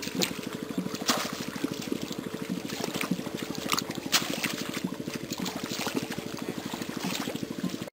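Shallow muddy water sloshing and splashing as people wade through it and a bamboo fish-trap basket is pushed down into the water, with a few sharper splashes. Under it runs a steady, fast, low throb.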